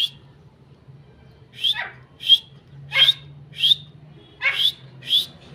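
Grey francolins (teetar) calling over and over: each phrase is a harsh falling note followed by a short, sharp high note, repeated about three times after a single high note at the start.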